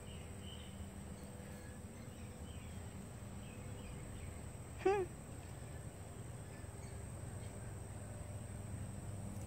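Quiet yard ambience: faint scattered bird chirps over a steady low hum, with one brief louder call about five seconds in.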